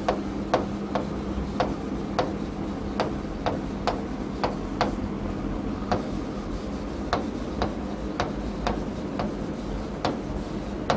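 Chalk clicking against a chalkboard while writing, a light tick about twice a second, over a steady low hum.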